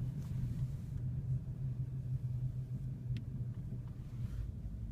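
Steady low rumble of a vehicle, with a faint click about three seconds in.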